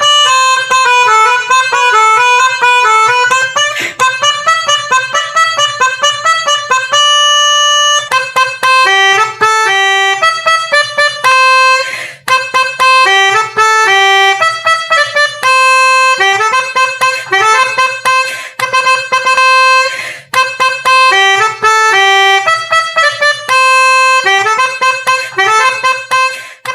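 Background music: a bouncy children's tune carried by a reedy lead like a harmonica or accordion, over a soft steady beat.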